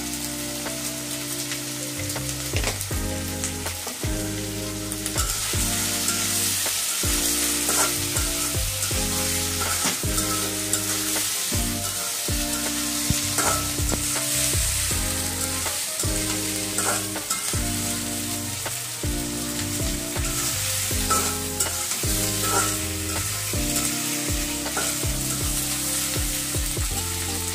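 Potato wedges frying in oil in an aluminium karahi, sizzling, while a metal spatula stirs them and scrapes against the pan. The sizzle grows louder about five seconds in.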